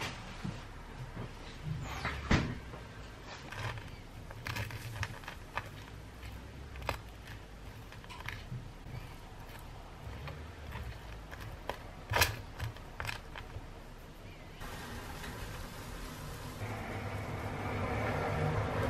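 Knife and food being handled on a wooden cutting board: butter spread on seeded bread and pieces set down, heard as scattered light clicks, scrapes and knocks, two sharper knocks about two seconds in and about twelve seconds in. In the last few seconds a steady noise comes up and grows louder.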